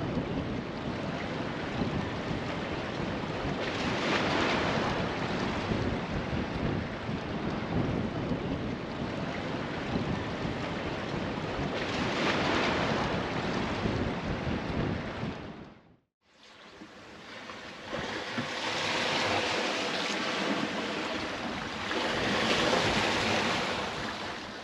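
Ocean waves and surf rushing, swelling and fading every several seconds, with wind. The sound cuts out for a moment about two-thirds of the way through, then returns as more wind and rushing water.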